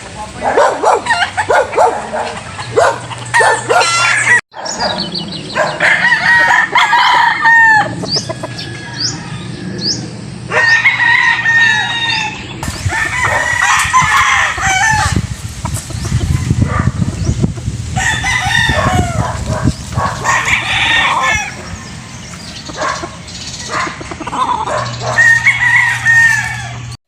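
Several roosters crowing again and again, their calls overlapping.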